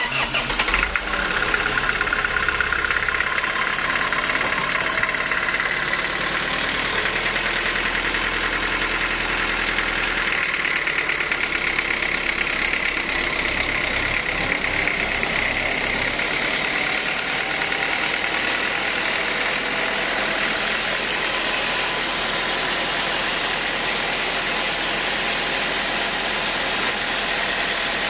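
Sawmill machinery running steadily and loudly, a constant engine-driven drone with a dense hiss.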